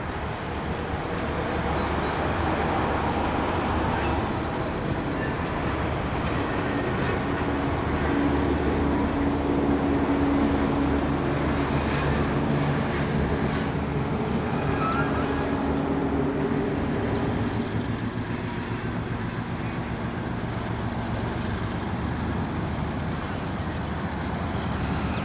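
A 600-horsepower end-cab diesel switcher's engine runs under load as the locomotive moves slowly with a string of tank cars. It builds in the first couple of seconds, holds steady, and eases off about two-thirds of the way through.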